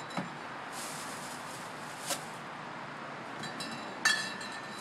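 Glass drink bottles knocking and clinking as they are loaded into a small refrigerator: a couple of light knocks, then one loud ringing clink about four seconds in.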